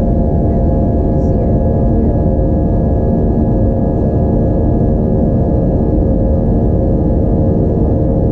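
Airbus A320-232's IAE V2500 turbofan engines running, heard from inside the passenger cabin: a loud, even drone with several steady humming tones over a low rumble.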